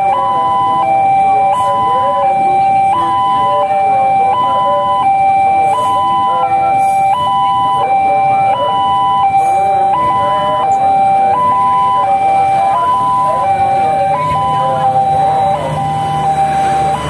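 Railway level-crossing warning alarm sounding its electronic two-note signal, switching between a high and a low note about every 0.7 s. Under it is the rumble of a passenger train, hauled by a CC 206 diesel locomotive, passing over the crossing.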